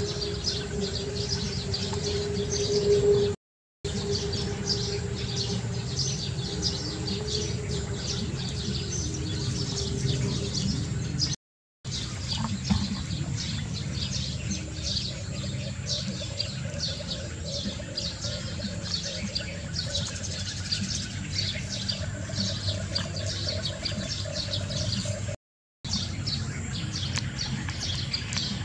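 Small birds chirping busily over a low steady rumble. The sound cuts out completely three times, for a moment each time.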